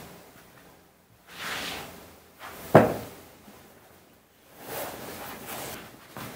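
A person coming in and sitting down on a wooden chair: swishing movement noises, one sharp thump near the middle, then rustling as sneakers are pulled off and slide sandals put on.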